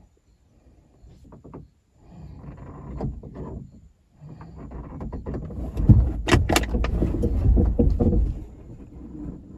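A car door being tried from outside: the handle is pulled and the door rattles and clunks repeatedly, loudest about six to eight seconds in, with sharp clicks among the rattles.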